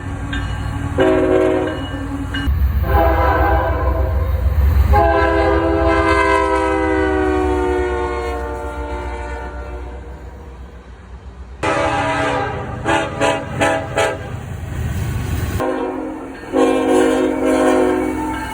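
Locomotive air horns sounding in a string of abruptly cut clips over the low rumble of passing trains. One long blast slides down in pitch as the train goes by, and near the middle comes a quick series of short toots.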